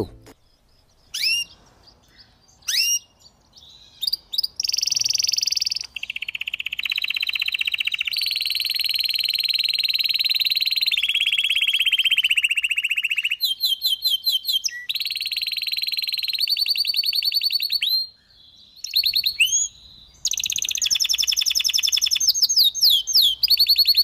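Canary singing: a few short rising chirps, then long rapid trills, each held at one pitch for a second or more before switching to another pitch, with brief pauses between phrases.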